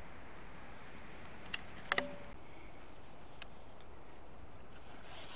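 Steady low hiss of background noise, with a few brief sharp clicks about one and a half to two seconds in and another faint one later.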